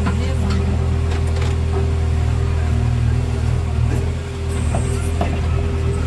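A JCB 3DX backhoe loader's diesel engine running steadily, heard from inside the cab. A steady whine sits over the engine, with a few light clicks and knocks as the backhoe works.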